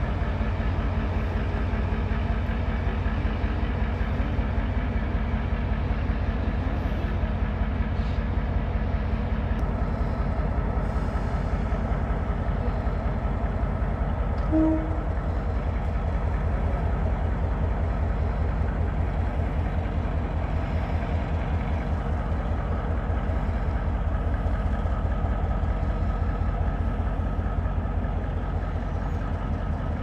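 G22 diesel locomotive's engine running with a steady low pulse as it moves slowly along the track, with one short horn toot about halfway through.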